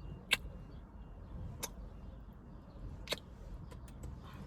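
Low, steady rumble inside a car's cabin, with three short sharp clicks about a second and a half apart.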